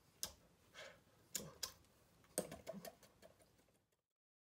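Quiet sharp taps and clicks from a person's hands and mouth while signing, with a brief faint vocal murmur after the middle. All sound cuts off suddenly about four seconds in.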